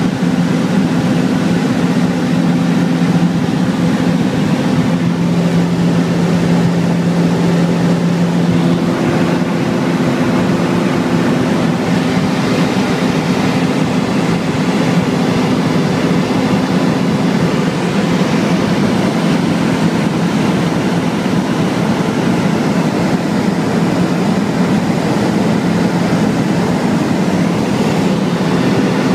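Rotax 912ULS flat-four engine and propeller of a Zenair Zodiac 601XL-B light aircraft running steadily at cruise power, heard inside the cabin as a loud, even drone over rushing airflow.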